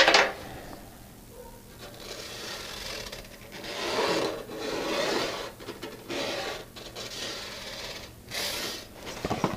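Felt-tip marker scratching along cardstock, the card rubbing against the sheet-metal dash as an outline is traced: a sharp tap at the start, then a series of short scratching strokes.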